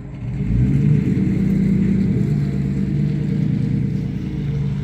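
A motor vehicle's engine running, a steady low hum that gets louder just after the start and then holds.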